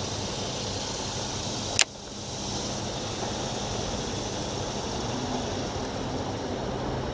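A boat motor running steadily, with rushing wind and water noise. A single sharp click comes about two seconds in.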